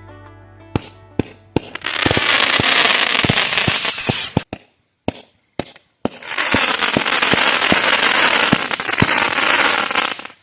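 Fireworks going off: a few sharp pops, then a dense crackling barrage with a short high whistle in it. After a brief gap, a second, longer crackling barrage.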